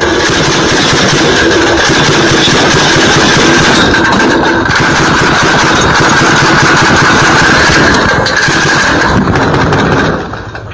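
Belt-fed machine gun firing one long continuous burst of rapid automatic fire, which stops near the end.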